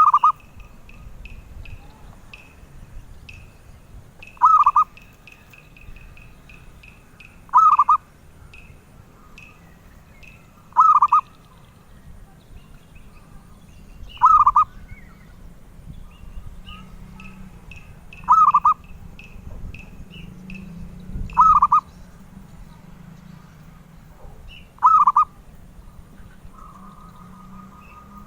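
Perkutut (zebra dove) cooing: a short, loud trilled coo repeated every three to four seconds, eight times in all, with a faint rapid high chirping underneath.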